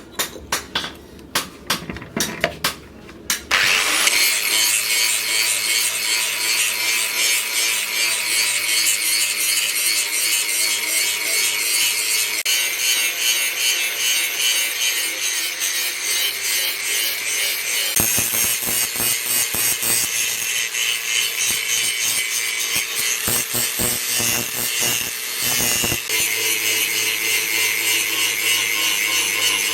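A quick series of hammer blows on the leaf-spring steel, then about four seconds in a power grinder starts grinding the steel axe head. The grinding is a continuous harsh rasp over a steady motor hum.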